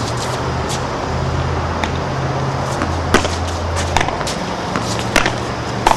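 A padel rally: sharp pops of the ball struck by solid padel paddles and bouncing off the court, spaced irregularly, the loudest about three seconds in and two near the end. Under them runs a steady low hum and hiss.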